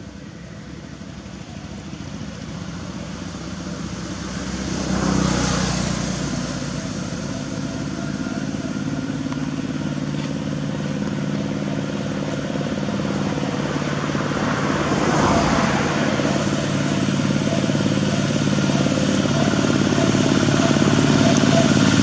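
A motor vehicle's engine running steadily and growing gradually louder, with two swells, about five and fifteen seconds in.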